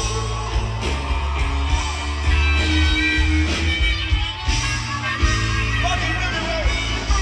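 Live band playing, recorded from the audience: acoustic and electric guitars over drums and a heavy bass line, with a melody line that bends in pitch.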